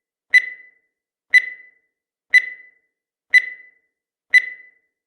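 Countdown timer sound effect: a short, high electronic beep once a second, five in all, each fading quickly.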